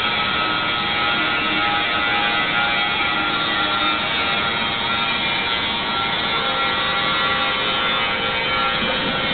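CNC plasma cutting machine's plasma torch cutting, a steady hiss laced with a whine of several held tones.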